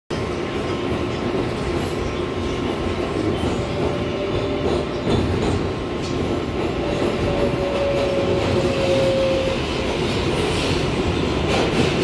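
R142A subway car running through a tunnel, heard from inside the car: a steady rumble and rattle of wheels on rail. A thin high tone comes in twice over the rumble, the longer one from about seven to nine and a half seconds in.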